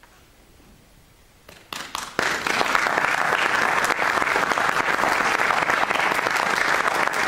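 Theatre audience applauding. After a short hush, a few scattered claps start about a second and a half in and swell quickly into steady, full applause.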